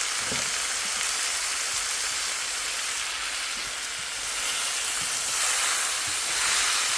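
Meat sizzling in hot oil in a cast-iron kazan: a steady frying hiss that swells a little about two thirds of the way through.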